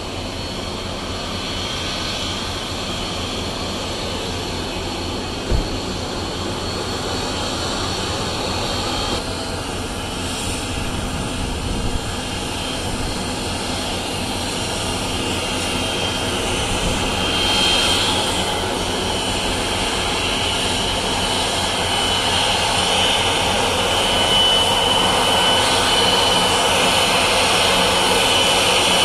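Jet engines of a Boeing 777-200ER at taxi power as the airliner taxis in, a steady rushing noise growing gradually louder as it approaches, with a high engine whine rising out of it in the last several seconds. One brief thump about five seconds in.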